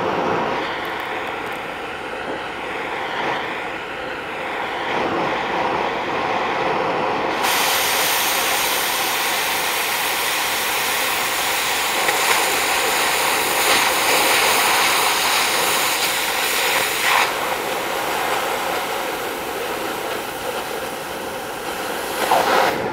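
Oxy-acetylene cutting torch burning steadily with a rushing hiss. About seven seconds in a sharper, louder hiss joins it and lasts to the end: the cutting-oxygen jet coming on as the torch cuts a bevel across the steel I-beam flange.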